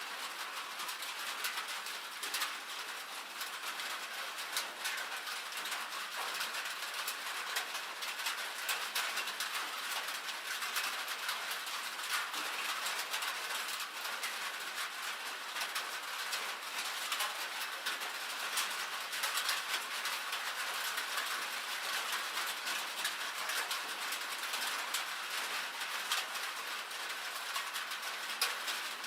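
Rain and hail falling on a metal roof: a steady, dense patter of small ticks, with sharper individual hits scattered throughout.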